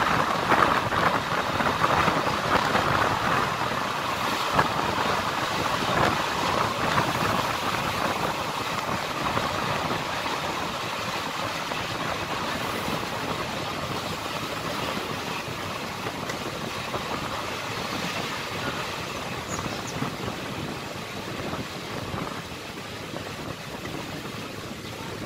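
Running noise of a passenger train heard from an open coach doorway: a steady rumble and clatter of wheels on rail mixed with rushing air. It gradually gets quieter.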